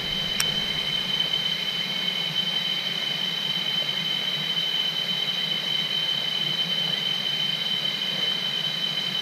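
Cicadas droning steadily: a constant high-pitched whine on two pitches, over a low, even rush. There is a single sharp click about half a second in.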